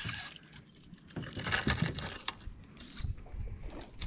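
Fishing reel and tackle giving irregular clicks and light metallic rattling as a small smallmouth bass is reeled in and lifted out of the water on the rod.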